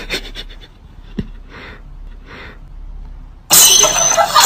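A few soft breathy puffs and a sharp click, then about three and a half seconds in a loud burst of music cuts in suddenly and is the loudest thing heard.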